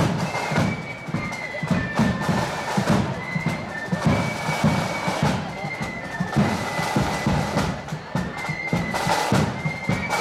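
A marching flute band playing a tune: a high, shifting melody line over a steady beat of snare and bass drums.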